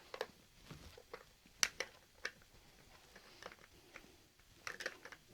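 Scattered small clicks and taps of a Phillips screwdriver and metal parts being handled while a screw is driven into an air rifle's trigger guard.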